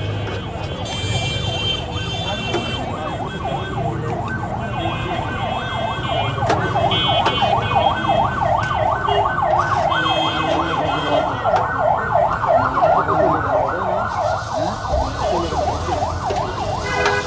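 A siren in a fast rising-and-falling wail, several cycles a second. It builds about three seconds in and fades out near the end, over steady street noise and short, higher horn-like tones.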